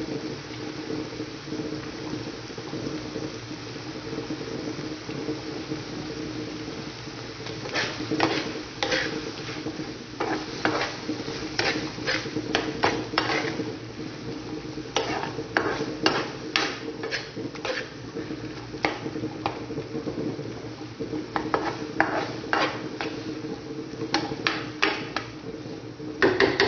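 A metal spoon stirs and scrapes chopped pork offal in a skillet, with repeated clicks of spoon on pan, over a steady sizzle and a low hum. The stirring starts several seconds in.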